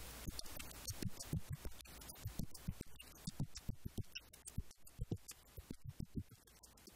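Beatboxing: a person making a quick rhythm of low kick-drum thumps and sharp clicks with the mouth.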